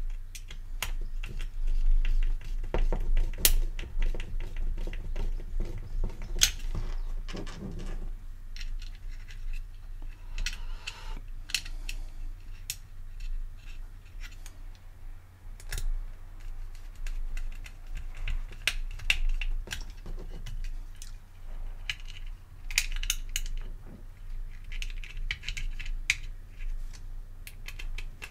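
Small screwdriver driving screws into a plastic hot-air-gun cradle: irregular clicks, taps and scrapes of metal on plastic as the screws are turned and the part is handled. A steady low hum sits underneath.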